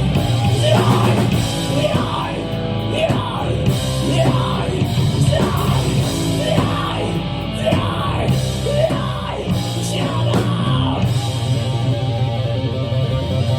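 Thrash-metal band playing live and loud, distorted guitars and drums, recorded on a phone in the crowd. A repeated rising-and-falling figure runs over the band until about eleven seconds in, then the guitars settle into a steady riff.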